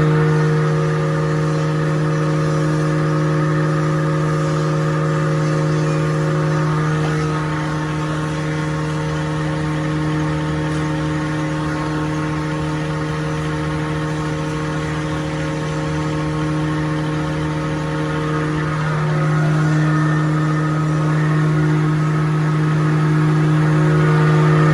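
Wood-grinding (sawdust powder) machine running: a loud, even mechanical hum whose pitch shifts slightly a couple of times.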